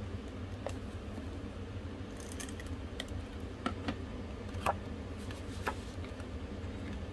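Scattered light clicks and ticks of hands handling paper card stock and tape, as a stamped panel is worked and set down onto a card front. The clicks come irregularly, about a dozen, with the sharpest two in the second half, over a steady low hum.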